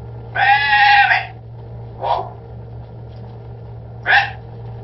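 Caged green parrot calling: one drawn-out pitched call about half a second in, then two short calls, around two and four seconds in.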